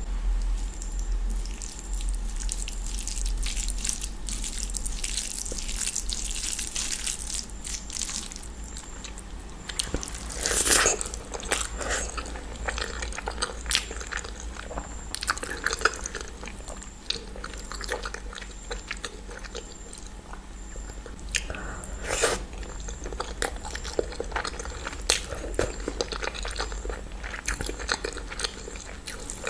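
Close-up sounds of a person eating: wet chewing, lip smacks and bites, with irregular clicks throughout and a louder burst of chewing about ten seconds in.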